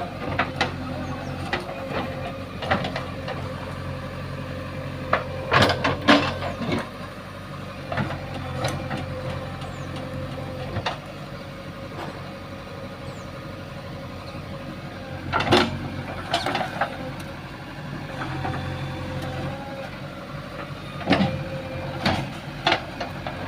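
JCB 3DX backhoe loader's diesel engine running steadily while it works, with sharp metallic clanks and knocks at irregular intervals from the bucket and arm. The clanks come in clusters: a loud group about a quarter of the way in, another past the middle, and more near the end.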